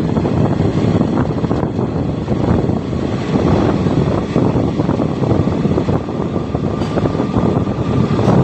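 Passenger train running at speed, heard from an open coach window: a steady rumble and rattle of the coach on the rails, with wind buffeting the microphone.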